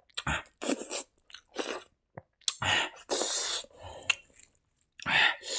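A man chewing a mouthful of hand-fed rice and mashed side dish with his mouth open, in short, irregular wet smacking bursts.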